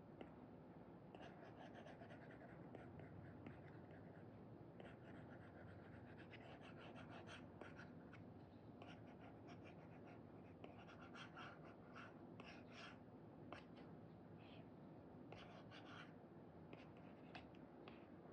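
Apple Pencil 2 with an Elecom replacement nib scratching and tapping on a paper-like screen protector over an iPad, in quick runs of short brush strokes. Faint.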